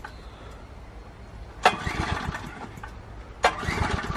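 Small engine of a walk-behind cultivator being pull-started. A sharp yank comes about one and a half seconds in and another about three and a half seconds in, each followed by a short sputtering run; after the second pull it catches and runs with an even, rapid firing near the end.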